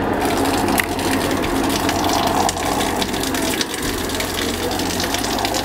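Outdoor shower running: a steady rush of water splattering down, with many small drop ticks in it.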